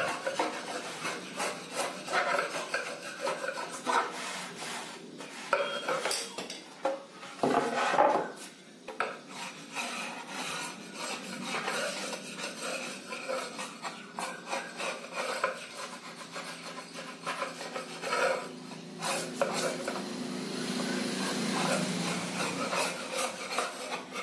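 Wood chisel scraping cured, sponge-like joint paste squeeze-out off a wooden panel in repeated strokes. The dry foamed paste comes away easily in strips, showing it has fully cured.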